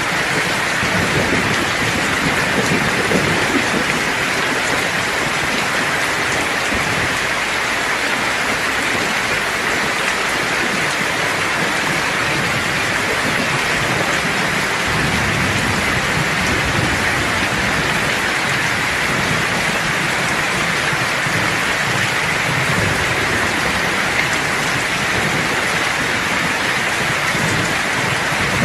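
Steady heavy rain with low, rolling thunder rumbling off and on beneath it.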